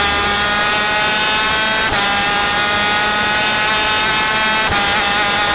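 Superkart's Yamaha TZ250 two-stroke racing engine running flat out at high revs, heard onboard as a high-pitched buzzing whine. It breaks briefly about two seconds in and again near the end, then picks up pitch again: upshifts under full throttle. The tail of a music track fades out at the very start.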